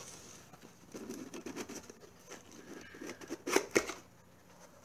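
Hands handling and opening a cardboard shipping box: soft scraping and rustling of the cardboard, then two sharp clicks about three and a half seconds in.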